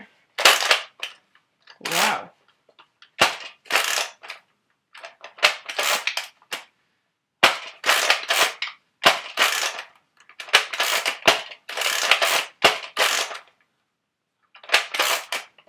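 Nerf Zombie Strike Slingfire lever-action blaster being cycled and fired over and over, making sharp plastic clacks and snaps in quick groups of two or three.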